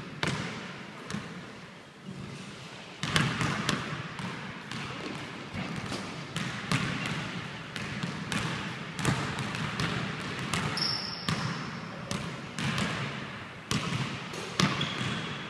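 Basketball bouncing on a hardwood gym floor at an uneven pace, each bounce a sharp thud with a short echo in the hall.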